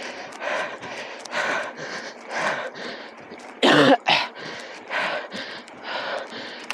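A mountain biker's hard, rhythmic breathing during a race effort, a puff about once a second, with one loud cough just over halfway through.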